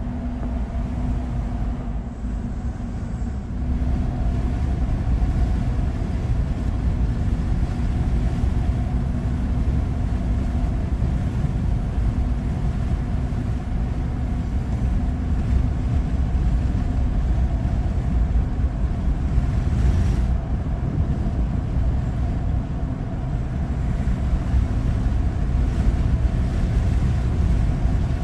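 A car driving at road speed, heard from inside the cabin: a steady low rumble of tyres and engine with a faint steady hum.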